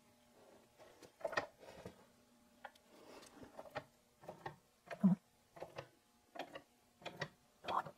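Metal clicks and scrapes as a clamp and steel pieces are fitted against a differential carrier and the clamp's screw is worked by its handle. The strokes get regular from about four seconds in, roughly two a second.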